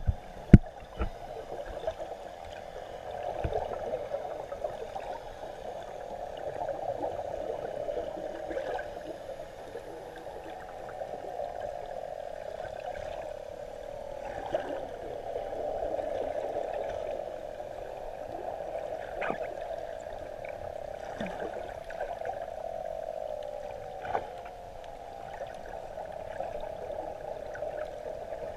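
Underwater ambience picked up by a camera in a waterproof housing: a steady, muffled water noise with occasional sharp clicks and knocks.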